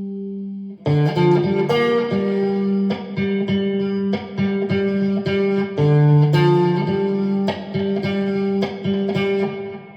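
Electric guitar played through an amplifier: a held note dies away just under a second in, then a run of picked notes that ring on over one another.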